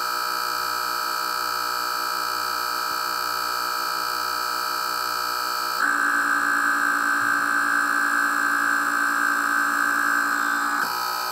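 Small Arduino-controlled DC diaphragm air pumps running with a steady buzzing whine. About six seconds in the sound switches abruptly to a louder buzz of a different pitch, which lasts about five seconds before it drops back: the pumps being switched over.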